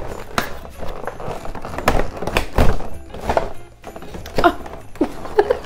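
Cardboard advent-calendar door being pushed in and torn open by hand: a string of irregular thuds, knocks and tearing. Music plays in the background.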